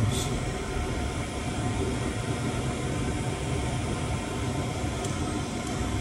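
Chinese diesel air heater's fan running steadily during its start-up cycle, with the glow plug heating and the fuel pump not yet pumping.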